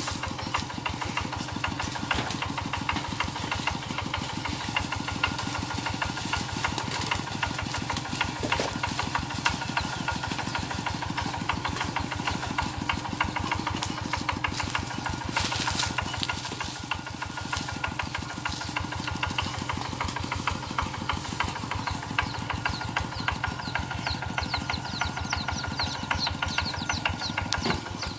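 Kubota RT120 single-cylinder diesel engine of a two-wheel walking tractor running steadily under way, with rapid, even firing pulses.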